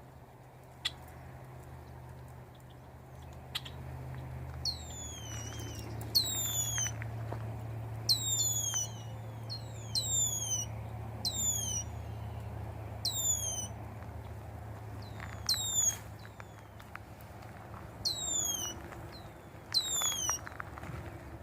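A bird calling repeatedly, about nine high whistled calls that each sweep sharply downward in pitch, coming every two seconds or so from about five seconds in. A steady low hum runs underneath.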